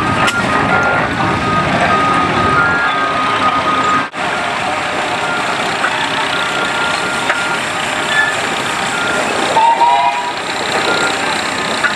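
Steam traction engines running as they roll over a dirt show field, a steady mechanical din; the sound drops out abruptly for a moment about four seconds in, then carries on with a Case engine. Short high beeps come and go over it.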